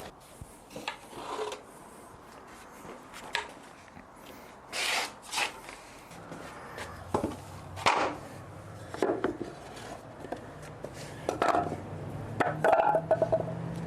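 Wooden boards being handled: irregular knocks, scrapes and rubbing of wood on wood. A faint low hum comes in about six seconds in.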